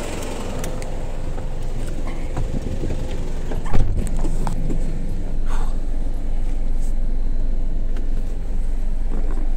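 Flatbed tow truck's engine idling with a steady low rumble, heard from its cab, with a single loud thump about four seconds in and a few light clicks and rustles around it.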